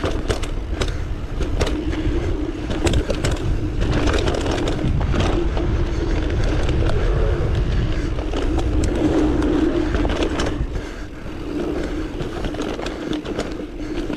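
Mountain bike rolling down a dirt trail, heard from a GoPro on the rider: a steady hum of the tyres on the dirt, frequent sharp clicks and rattles from the bike over the bumps, and wind noise on the microphone. The sound eases briefly about ten seconds in, then picks up again.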